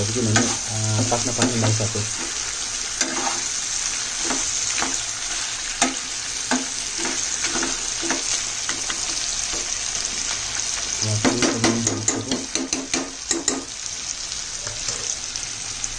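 Pork curry sizzling in a metal frying pan while a metal spoon stirs it, scraping and clicking against the pan. A low hum comes in briefly at the start and again about eleven seconds in.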